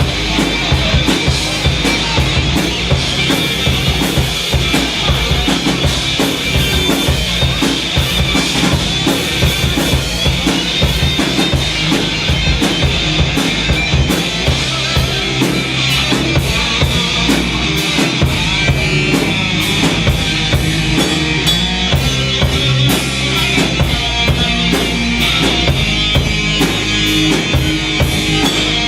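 Stoner rock band playing live and loud, with a busy drum kit (kick, snare and rim hits) driving a dense, steady wall of band sound.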